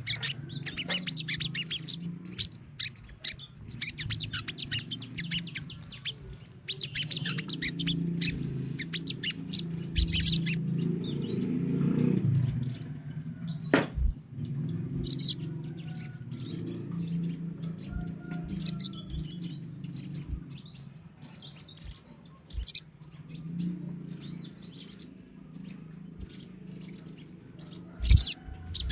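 A colony of sogon birds chirping and twittering in rapid high bursts, over a steady low rumble. A few sharp knocks stand out, about ten seconds in, near the middle and just before the end.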